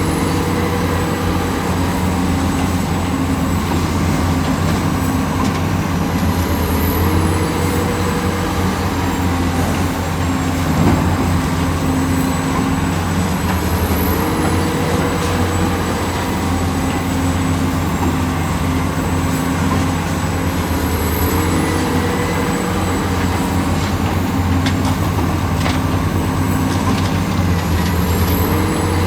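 Hydraulic excavator's diesel engine running steadily under load, with a working cycle that repeats about every seven seconds: the engine note steps up and a brief high hydraulic whine falls away each time.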